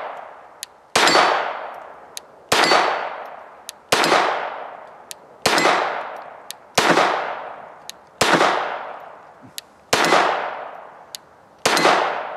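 Glock G44 .22 LR pistol fired at a slow, steady pace: eight shots about a second and a half apart. Each shot trails off in a long ringing decay, with the steel plate clanging on hits.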